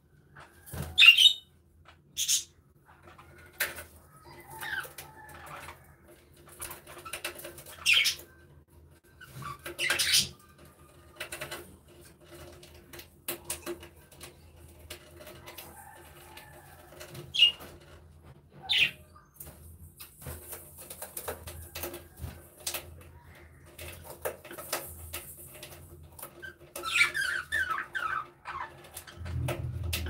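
Budgerigars giving short, sharp chirps every few seconds, with a longer chattering warble near the end and occasional wing flaps as they move between perches.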